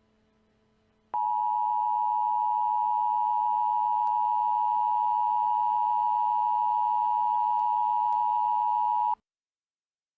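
Emergency alert attention tone: a single steady electronic tone near 1 kHz that starts about a second in, holds for about eight seconds and cuts off suddenly.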